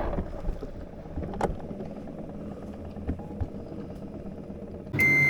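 Alpine coaster sled rolling along its metal track, a steady low rumble, with one sharp click about a second and a half in. Near the end a loud, steady, high beep starts.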